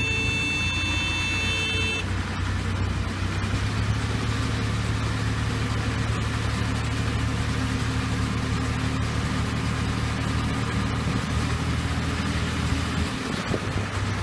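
Compact farm tractor's engine running steadily while it drives a mini round baler, whose machinery adds a steady mechanical noise over the engine. A high steady whine cuts off about two seconds in.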